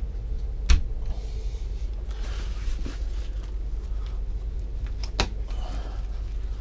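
A dark fabric panel being handled and pulled along its track: two sharp clicks about four and a half seconds apart, the first the loudest, with rustling between them over a steady low hum.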